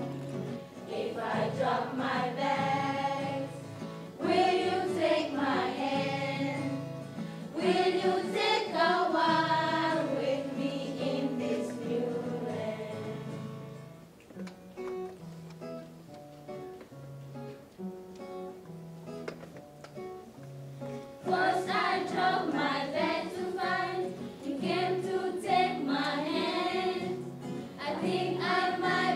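Group of young voices singing a song together over instrumental accompaniment with a steady bass line. The singing stops for several seconds in the middle, leaving only the accompaniment, then comes back.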